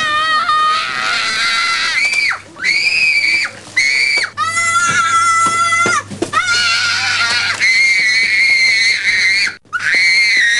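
A young child screaming in a tantrum: long, high-pitched screams one after another, broken only by short gasps for breath.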